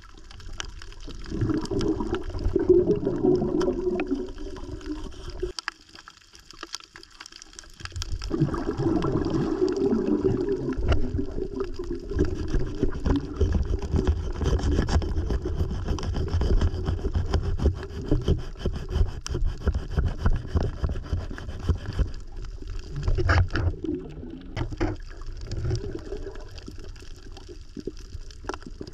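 Underwater sound picked up by a submerged camera: a muffled rush of moving water with many faint clicks and crackles, dropping quieter for a couple of seconds about six seconds in.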